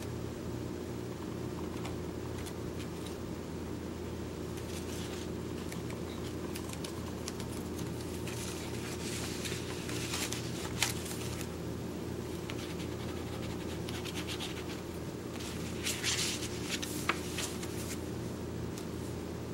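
Paper rustling and scraping as a folded pop-up card is handled and slid into a paper envelope, in two stretches with a couple of sharp clicks, over a steady low hum.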